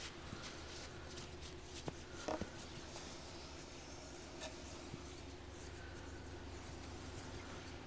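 Soft close-up scratching and rubbing sounds from hands working near the microphone, with scattered light clicks and a slightly louder rustle a little over two seconds in, over a faint steady low hum.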